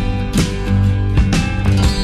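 Background music with a strong bass and repeated plucked notes.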